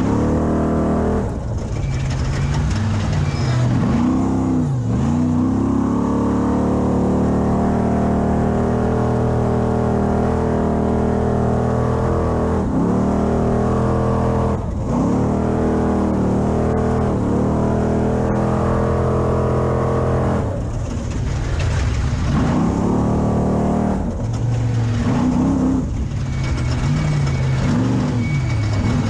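Class 6100 Spec Trophy Truck engine running hard under racing load, its pitch climbing and dropping again and again with throttle and gear changes.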